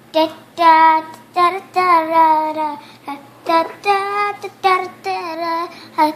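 A child singing, in short phrases of long held notes.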